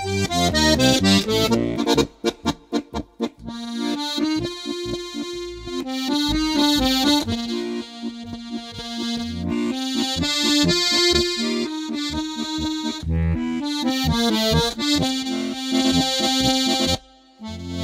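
Button accordion playing a march. Short, detached chords for the first few seconds, then a held melody over an oom-pah bass. A brief break comes near the end.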